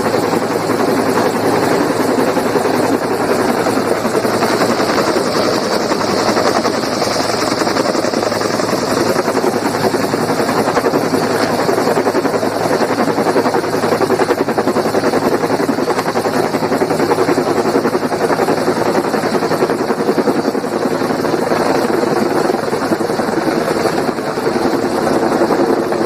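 Helicopter hovering close by, its rotor beating steadily and loudly as it lifts a load on its line.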